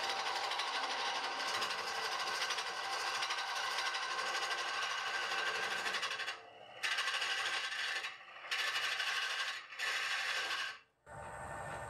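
Hollowing tool cutting inside a tall hollow wooden form spinning on a Nova Neptune Max lathe, making a steady scraping noise. It breaks off briefly three times in the second half as the tool is eased off, then stops near the end.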